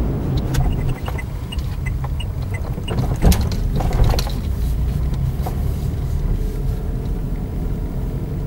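Car driving along a narrow lane, heard from inside the cabin: a steady low engine and road rumble. Scattered small rattling clicks come through it, with two sharper knocks about three and four seconds in.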